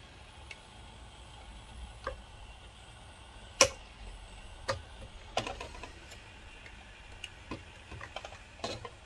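Scattered light clicks and taps of hands handling a plastic projector case. One sharper click comes about three and a half seconds in, and the others fall irregularly over a faint steady hiss.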